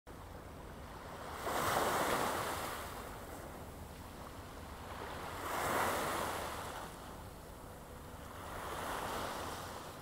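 Small sea waves breaking and washing over a flat rocky shore, three surges of surf a few seconds apart, with a low wind rumble underneath.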